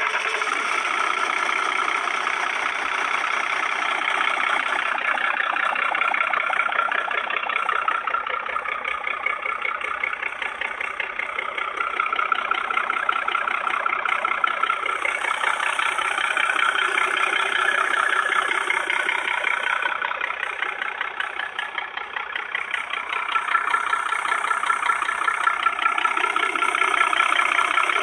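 GMC ToroFlow 478 cubic inch V6 four-stroke diesel engine running with a fast, dense knock, its level swelling and easing several times.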